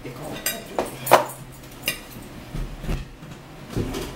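Dishes and cutlery clinking and knocking on a table a few separate times as people eat, the loudest clink with a short ring about a second in.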